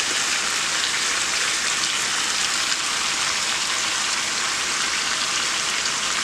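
Chicken and sausage sizzling in a pot on high heat: a steady hiss of fine crackles and spits.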